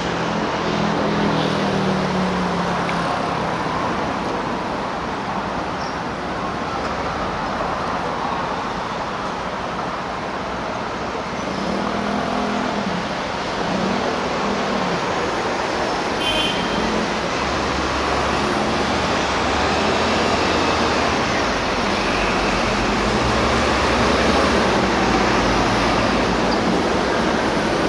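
Steady road traffic noise, a continuous rumbling wash, with a few brief faint pitched sounds partway through.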